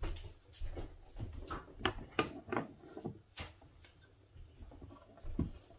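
Light knocks and clunks of painting supplies being handled and set down, about ten over the first three and a half seconds, with a firmer thump near the end.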